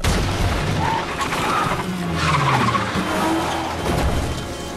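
A bucket of water splashes across a car's windshield, then the car skids with its tires squealing.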